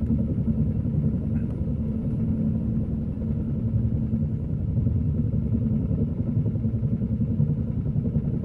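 Helicopter hovering in place, its rotor and turbine giving a steady low drone with a quick fluttering beat.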